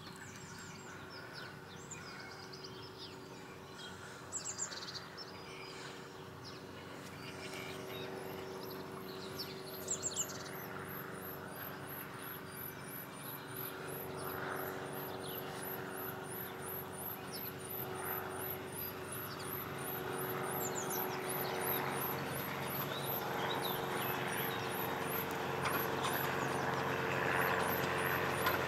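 Small birds chirping while the running of a miniature steam locomotive, a 2-6-2T tank engine, and its train grows steadily louder as it approaches.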